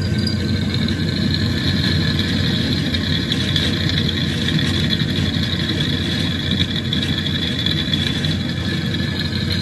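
Drill press motor running with a steady hum while a dull twist drill bit is pressed into a flat metal bar, giving a continuous high-pitched squeal that cuts off at the very end. The squeal is the bit rubbing rather than cutting, the sign of a dull bit.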